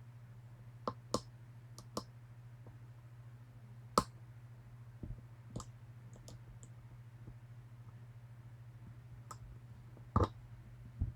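Lock pick clicking against the pins inside a Medeco M3 cam lock: scattered sharp clicks at irregular intervals, the loudest about four seconds in and a cluster near the end, over a steady low hum.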